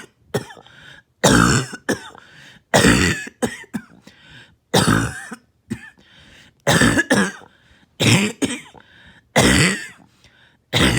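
A person coughing hard and repeatedly, about six loud coughs spaced one and a half to two seconds apart, some followed by a weaker cough.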